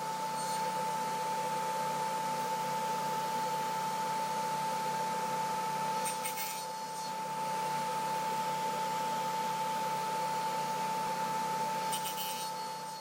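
Table saw running with a steady whine as a board on a crosscut sled is pushed through the tilted blade in repeated passes, widening a notch. Brief louder bursts of cutting noise come near the start, about six seconds in and about twelve seconds in.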